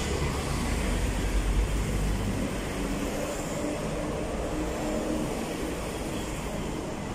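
Steady road traffic noise, a low rumble that swells briefly between one and two seconds in.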